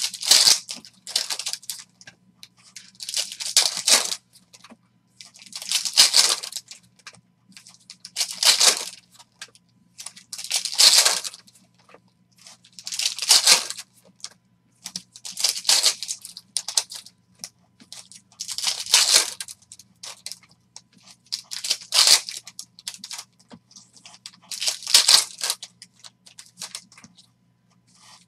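Foil wrappers of Panini Prizm basketball retail packs being torn open and crinkled by hand, a burst of crackling about every two and a half seconds.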